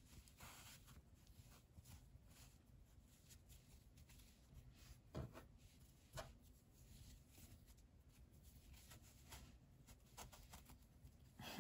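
Near silence, with the faint rustle of hands working yarn and a crochet hook. A few light taps come about five and six seconds in, and a sharper one at the very end.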